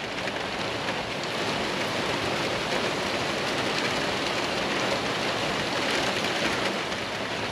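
Heavy rain falling steadily: a constant, even hiss.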